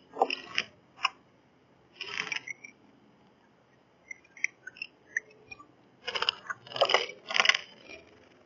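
Bird feeding at a camera bird feeder: beak pecks and seeds rattling and crunching against the feeder tray, in irregular clusters of sharp clicks, busiest near the end.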